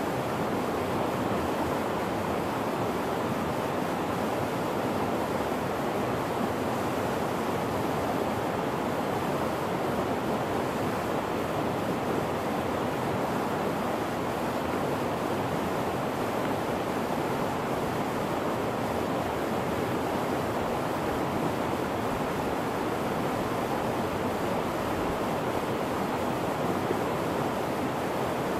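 River rapids rushing steadily over rocks.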